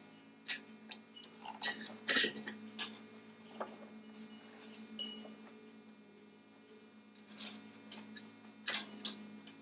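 Scattered light clicks and taps of metal and solder wire being handled while brass lamp spinnings are soldered, over a steady low hum. The strongest clicks come about two seconds in and near the end.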